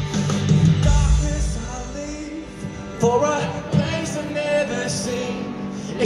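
Rock band playing live through an arena PA, heard from the stands with the hall's echo. Heavy bass and drums ease off about two seconds in, and a voice comes in singing about a second later.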